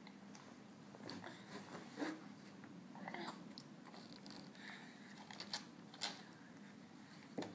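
Faint eating and handling sounds: a toddler chewing and smacking with his mouth in a plastic divided plate, with scattered light clicks and knocks as the plate is lifted and gripped.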